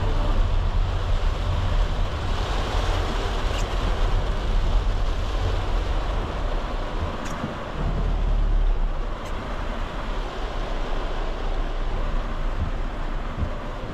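Cabin noise of a Volkswagen Caddy 2.0 TDI van driving in heavy rain. The engine and road make a steady low rumble under a wash of rain on the body and wet tyre hiss. Three sharp ticks come through it.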